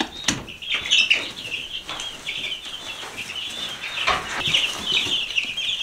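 A brood of young chicks peeping constantly in high, overlapping chirps, with a few knocks from handling inside the coop.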